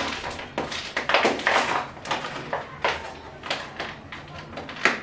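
Cling film and a clear plastic takeaway container crinkling and crackling as they are pulled and peeled open by hand, with a sharper crack at the very end.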